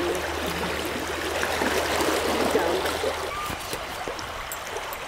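Shallow river flowing over riffles: a steady rush and trickle of moving water.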